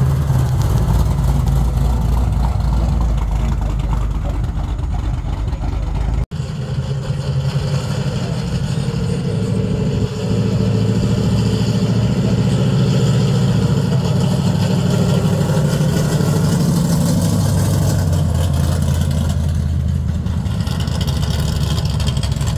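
Engines of two custom pickup trucks driving slowly past. First a lowered GMT400 Chevrolet pickup, then, after a brief break in the sound about six seconds in, a square-body pickup that gets louder from about ten seconds in as it comes near and goes by.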